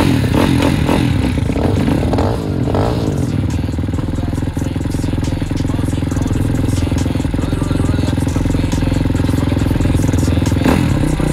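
Dirt bike engine running, revved unevenly for the first few seconds and then held at a steady speed.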